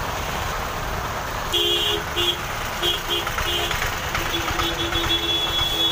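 Vehicle horns honking in slow street traffic over a steady wash of heavy rain and engines. A run of short toots starts about a second and a half in, and one long honk is held near the end.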